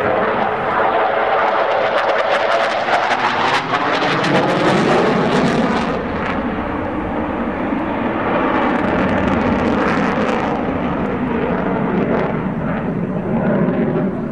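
MiG-29's twin Klimov RD-33 turbofans running loud as the jet flies past, with a sweeping tone that falls in pitch over the first few seconds and a crackle in the noise, then a steady jet roar as it banks away.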